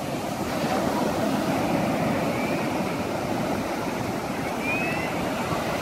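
Surf breaking and washing up on a sandy beach: a steady rushing noise.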